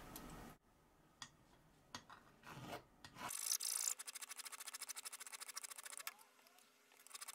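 Flat file rasping across a metal washer clamped in a vise: a grating scrape with a fast, even chatter. It starts after a few light clicks about three seconds in, pauses, and starts again near the end.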